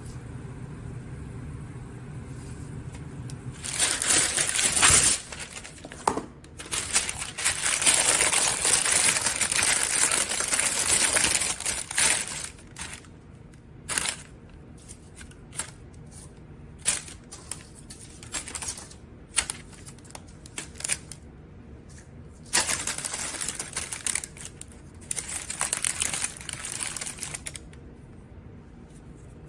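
Crinkling of a deli-paper basket liner and clicking of metal tongs as crispy chicken tenders are set into the basket. There are two long stretches of crinkling, with scattered sharp clicks between them.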